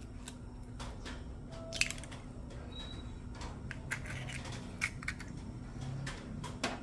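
Chicken eggshell being pried apart by hand over a bowl: a sharp crackle of shell about two seconds in, then a few lighter clicks of shell later on. A faint steady hum runs underneath.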